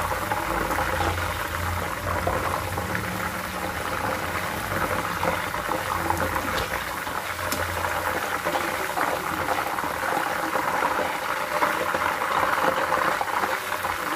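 Raw banana chips deep-frying in hot oil, a steady, dense crackling sizzle that keeps up without a break. The sizzle means moisture is still cooking out of the slices; the chips are done once it dies down.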